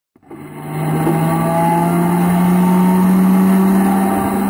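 Simulated engine sound played by the RC P-47's onboard sound system (Mr RC Sound 4.1 through transducers and a bass exciter), opening its start-up sequence with a loud, steady whine that fades in and slowly rises in pitch.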